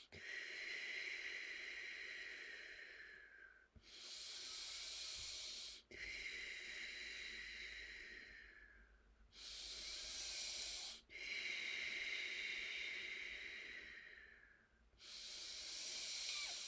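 A woman breathing slowly and deeply close to the microphone. Longer breaths of three to four seconds that tail off alternate with shorter ones of about two seconds, six in all.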